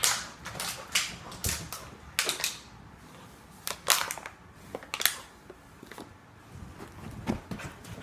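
Empty plastic water bottle crackling and snapping in irregular sharp cracks as a husky bites and chews on it, loudest in the first few seconds.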